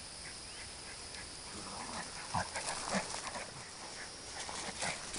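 Two Jack Russell terriers play-fighting, with a run of short, rough noises from the dogs starting about two seconds in.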